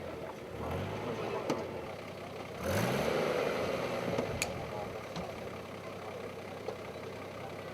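Off-road 4x4's engine running, then revving up sharply about three seconds in, with a few short sharp knocks.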